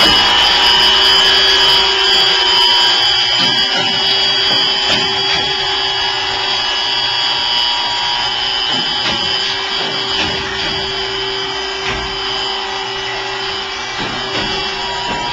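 Williams & White TFH-CS2 top and face saw grinder running in automatic operation: a steady whine over a grinding hiss as the wheel works the saw teeth, with a few faint ticks. It slowly fades.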